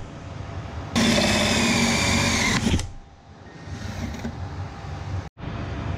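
Cordless drill spinning a 1¾-inch hole saw into the front bumper. It runs for about two seconds with a steady motor whine, then stops and gives way to quieter scraping and handling sounds.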